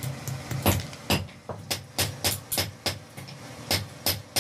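Hand hammer striking steel cutting pliers on a steel block: a run of sharp metallic blows, unevenly spaced at about three a second.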